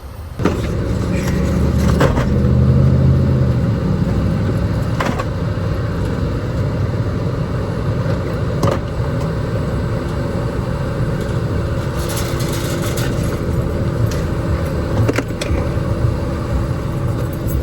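Car driving: a steady low engine and road rumble, swelling a little about two seconds in, with a few faint ticks.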